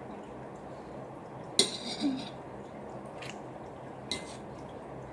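Someone eating a piece of cold watermelon: a sharp click and a short juicy crunch about a second and a half in, then softer clicks of a bite or utensil against a plate.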